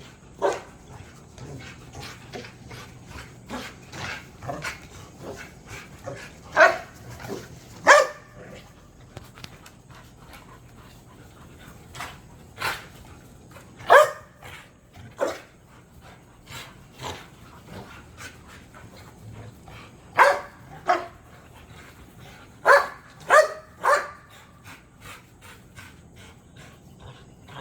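Dog barking: about a dozen short, sharp barks spaced irregularly, with a quick run of three barks near the end.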